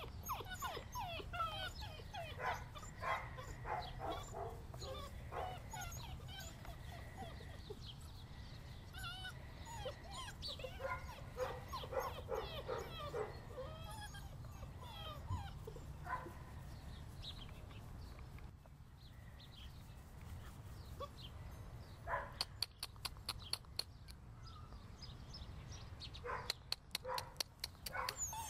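German Shorthaired Pointer puppies, seven weeks old, whining and whimpering over and over with short yips. Near the end comes a run of quick sharp clicks.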